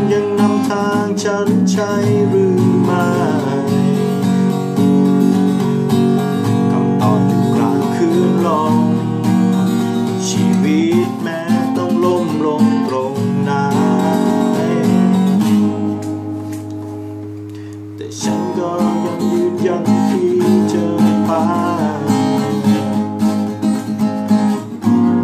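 Acoustic guitar strummed and picked in the song's instrumental close. About two-thirds of the way through, a chord is left ringing and fades, then the playing picks up again.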